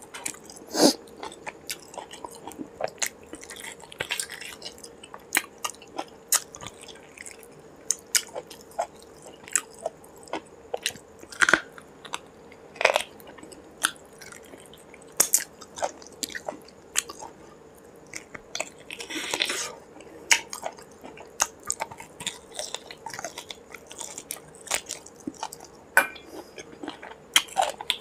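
Close-up eating sounds of a person chewing mouthfuls of curry, meat and rice eaten by hand: wet chewing, lip smacks and sharp mouth clicks at an irregular pace. There is one longer, noisier mouth sound about two-thirds of the way in.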